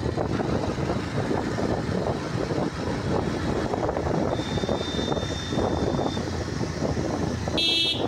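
Motorcycle running on the road with heavy wind buffeting on the microphone, and a short horn toot just before the end.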